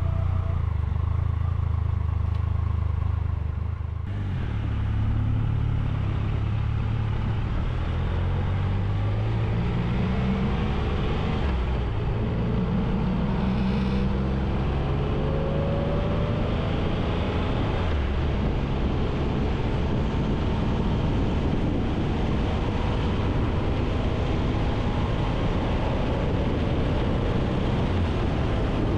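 Triumph Tiger 1200's three-cylinder engine idling for about four seconds. It then pulls away and accelerates through several gears, its pitch rising and dropping back at each change. From about halfway through it settles into a steady rush of wind and engine noise at cruising speed.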